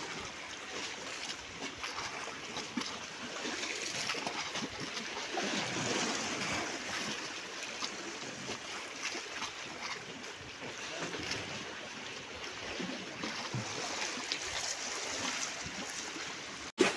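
Sea water lapping and washing against shoreline rocks: a steady, even wash of water noise.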